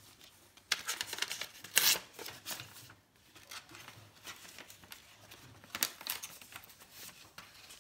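Wrapping paper and gift bags rustling and crinkling in short crackly bursts, loudest about two seconds in, with another flurry near the end.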